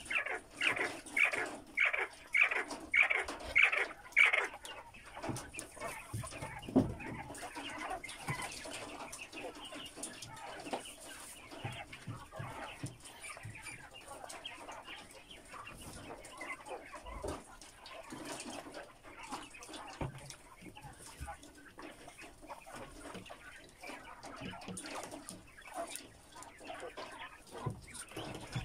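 Caged flock of young giant white quail calling: a run of loud, evenly spaced chirps about two a second for the first four seconds, then softer chirping and rustling among the birds, with an occasional soft knock.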